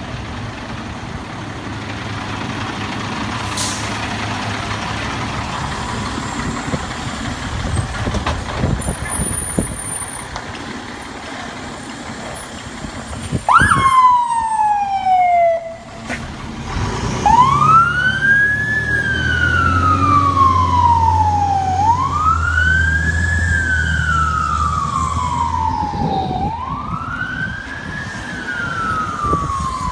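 Fire engine running, with its engine noise alone for the first half. About halfway through its siren starts, cuts off briefly, then settles into a wail. Each rise is quick and each fall slow, repeating about every four seconds over the truck's low engine rumble.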